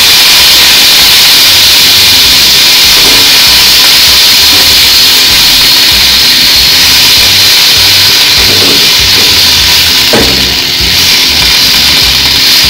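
Chopped onion, capsicum and tomato sizzling in hot oil on a flat griddle pan: a loud, steady frying hiss while the vegetables are stirred with a spatula.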